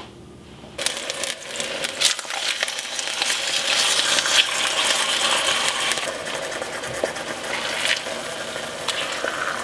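Sirloin tip steaks sizzling as they hit hot olive oil in an enameled cast iron braiser. The sizzle starts suddenly about a second in and goes on as a steady crackling hiss that eases slightly in the second half.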